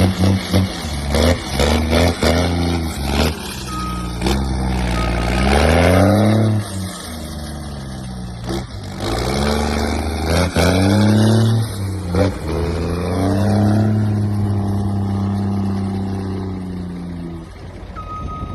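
Engines with loud exhausts revving: quick throttle blips at the start, then longer rises and falls in pitch, and a held rev that dies away after about 17 seconds. A short high beep sounds briefly near the end.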